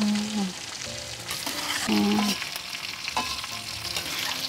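Food frying in hot oil, a steady sizzle, with stirring in the pan.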